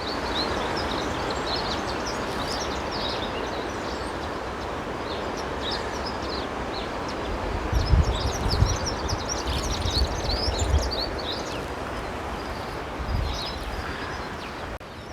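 Outdoor ambience: many small birds chirping and twittering over a steady rushing noise, with a few low rumbling buffets on the microphone around the middle.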